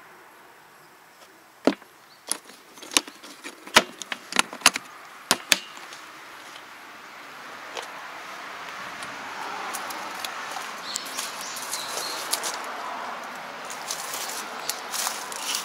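Red KTC plastic toolbox being shut: a run of sharp clicks and knocks, with the hinged lid closing, the latches snapping and tools rattling inside, from about two to six seconds in. After that, a fainter rustling with scattered small ticks.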